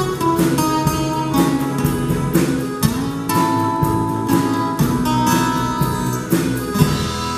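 Small folk-rock band playing an instrumental passage live: acoustic guitar strummed in a steady rhythm over accordion, electric guitar, bass and drums, with no singing.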